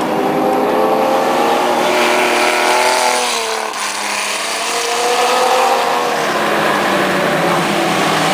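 Dirt-track race car engines running hard at high revs, the pitch climbing, dipping sharply about three and a half seconds in, then climbing again.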